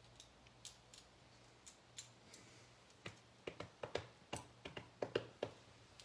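Light, irregular clicks and taps, a few scattered at first and then coming quickly over the second half, over a faint steady hum.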